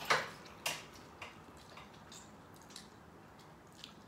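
Eating sounds: a few sharp, wet mouth clicks and smacks as a piece of seafood is bitten and chewed, the loudest right at the start and another just under a second later, then fainter ones.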